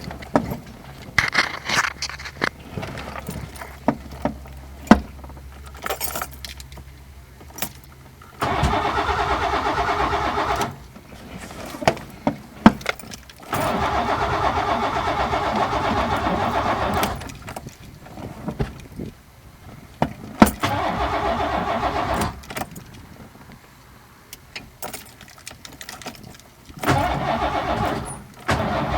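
Starter cranking a 1986 Ford Ranger's 2.9L V6 in four bursts of two to three and a half seconds each. The engine does not catch and run. Between the bursts come clicks and a jingle of keys, with a short pause each time. Crank-no-start that the owner puts down to the ignition coils.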